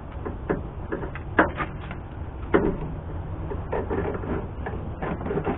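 Plastic vapor-barrier sheet being handled and pressed against a truck's inner door panel: rustling with scattered light knocks and taps, two louder ones about one and a half and two and a half seconds in.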